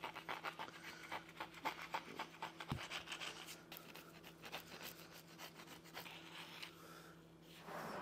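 Hand wire brush scrubbing thick old grease off a power hammer's clutch casting in quick back-and-forth strokes, several a second, dying away near the end.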